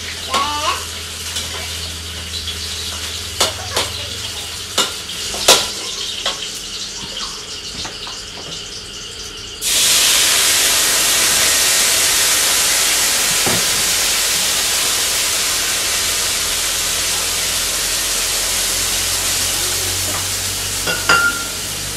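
A metal spatula clinks and scrapes in a wok over a faint sizzle. About ten seconds in, water is poured into the hot wok and it suddenly breaks into a loud, steady hiss of sizzling and steam that slowly eases off.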